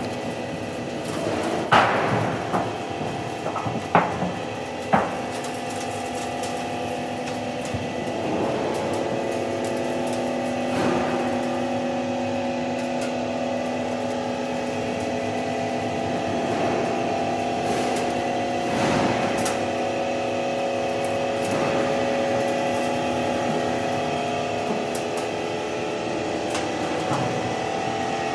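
IT5 roofing-sheet roll forming machine running, a steady hum of motor and rollers with several held tones. A few sharp metallic knocks come in the first five seconds.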